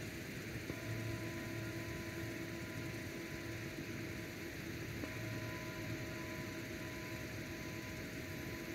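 Steady background hiss with a faint hum made of a few steady tones that shift slightly in pitch about a second in and again midway; no distinct event stands out.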